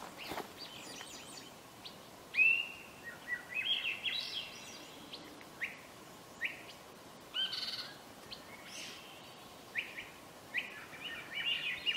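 A songbird singing: short clear whistled notes and phrases, several climbing upward in pitch, coming every second or two.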